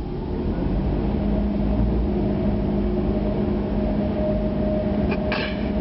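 Car running, heard from inside the cabin: a steady low rumble with a steady hum, and a couple of sharp clicks about five seconds in.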